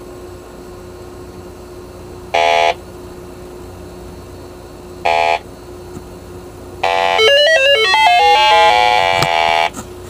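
Electronic refrigerant leak detector sounding: three short beeps a couple of seconds apart, then from about seven seconds in a near-continuous warbling alarm of rapidly changing pitches. The detector is reacting to refrigerant at a brazed joint even at minimum sensitivity, the sign of what the technician takes for a minor leak there.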